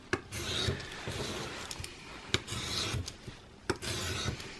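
Utility knife blade scraping through paper label strips on a bare tabletop with no cutting mat under it: a few rasping strokes of about a second each, with small sharp clicks between them.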